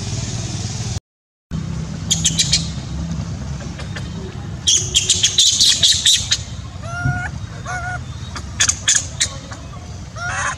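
Birds chirping in quick high bursts, with a few short rising-and-falling calls, over a steady low rumble. The sound drops out completely for half a second about a second in.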